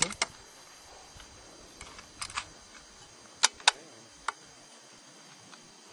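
Several sharp mechanical clicks, mostly in quick pairs: two at the very start, a pair a little after two seconds, a pair about three and a half seconds in, and a single click a little after four seconds.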